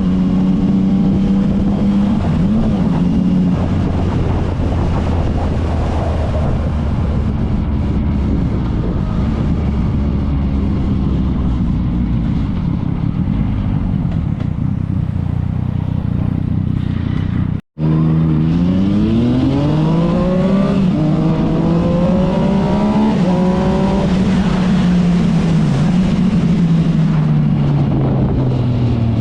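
Yamaha MT-09's inline-three engine through an Akrapovic exhaust, running under throttle with its pitch rising and falling. The sound cuts out for an instant about two-thirds of the way through, then climbs steadily as the engine revs up.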